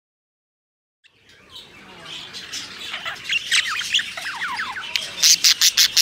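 A group of budgerigars chattering: quick falling chirps and warbles that fade in after about a second of silence, with a burst of loud, harsh squawks near the end.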